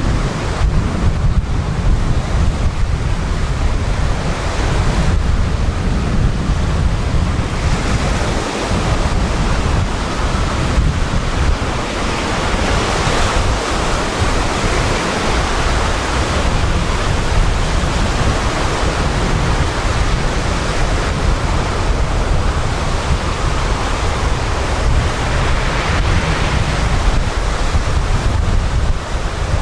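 Sea waves breaking in steady surf and washing up the beach, the hiss of foam swelling and easing as the waves come in. Wind buffets the microphone with a constant low rumble.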